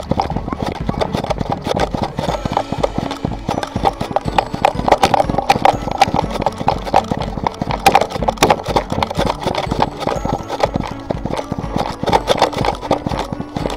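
Quick, rhythmic knocks and rattles from a harness-mounted action camera on a small running dog, each stride jolting the camera and the dog's paws striking the path.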